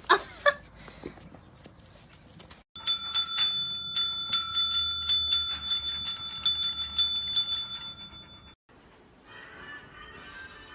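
Metallic bell-like ringing, struck rapidly and repeatedly, several strikes a second, for about six seconds, then cut off abruptly.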